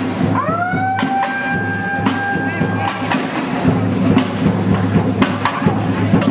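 Drums beating irregularly in a street protest march, over crowd noise. About half a second in, a held tone slides up and sustains for about two and a half seconds.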